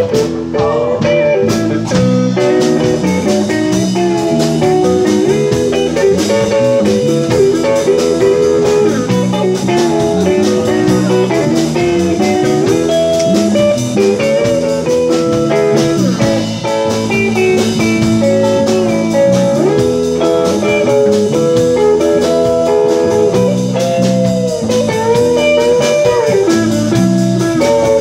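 Live band playing with electric guitars, electric bass and a drum kit, a guitar carrying the melody over a steady beat.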